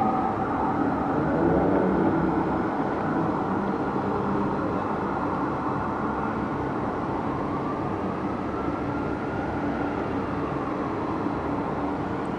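Fire engine siren wailing in slow rises and falls of pitch, heard from afar over a steady hum of city traffic; one long slow rise peaks about ten seconds in.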